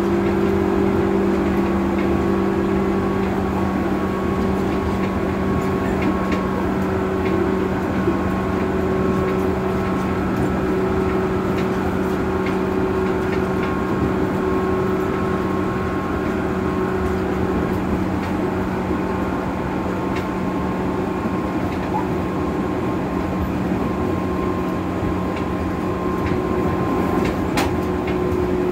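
Interior running sound of a 205 series 600 subseries electric multiple unit, a train with field-added excitation control, travelling between stations. A steady hum of a few fixed tones sits over continuous wheel-on-rail rumble, with a few faint clicks.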